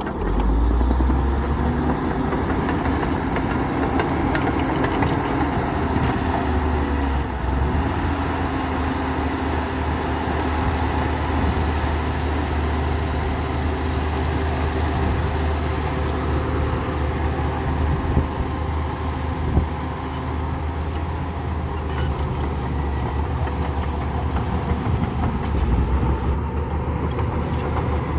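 Diesel engine of a Komatsu D60P bulldozer running steadily. Its pitch briefly sags and recovers about seven seconds in.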